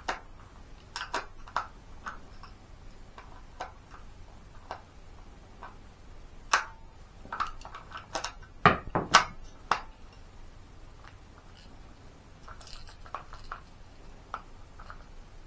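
Clicks and clacks of hands loading cartridges into an A!CTION C96 Red9 cap-firing model gun. A cluster of louder metallic clacks comes about eight and a half to ten seconds in, with lighter clicks before and after.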